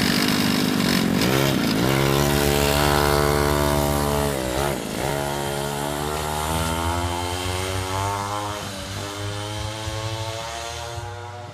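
Pocket bike's small engine revving as it is ridden off, the revs dropping and climbing again twice early on and once more faintly later, the sound fading as the bike moves away.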